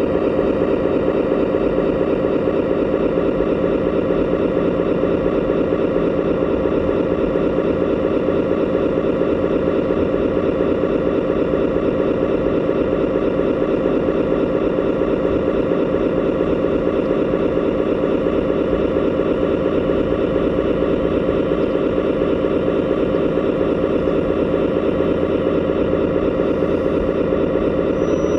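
Engine sound of a 1:16-scale RC military model, running steadily at an unchanging speed.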